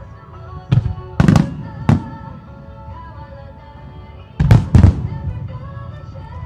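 Aerial firework shells bursting with sharp bangs: four in quick succession from about a second in, then two more close together about four and a half seconds in. Music plays steadily underneath, the soundtrack of a fireworks show set to music.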